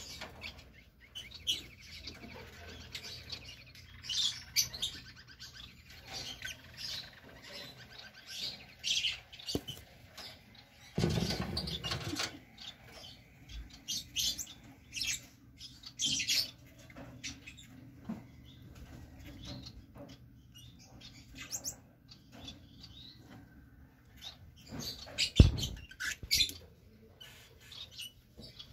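Fischer's lovebirds chirping in short, high, scattered squeaks. A loud rustling noise lasting about a second comes near the middle, and a single sharp knock comes near the end.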